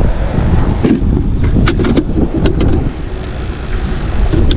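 Wind buffeting the microphone in a steady low rumble, with a few sharp clicks as the plastic lid of a bait bucket is handled.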